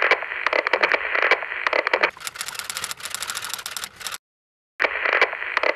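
Computer-terminal text sound effect: crackling static full of rapid clicks, then a fast run of high, even clicks. It cuts off about four seconds in and the same sequence starts again just under a second later.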